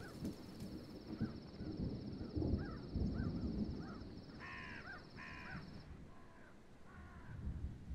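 A flock of crows cawing: many short calls, with two louder caws about four and a half and five seconds in. A steady high ringing tone runs over them and cuts off about six seconds in, and a low rumble sits underneath.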